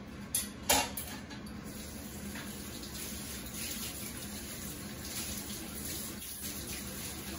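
Kitchen tap running into a sink as leafy greens are rinsed under it. Two sharp knocks in the first second.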